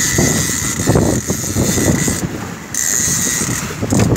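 Wind buffeting the microphone over the steady running of a small boat's motor on choppy water.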